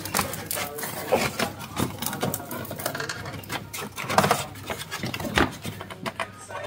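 A hard plastic ECU cover and wiring duct being handled and pressed into place in a car's engine bay: irregular clicks, knocks and rubbing of plastic on plastic, with the louder knocks about a second in and again past the four-second mark.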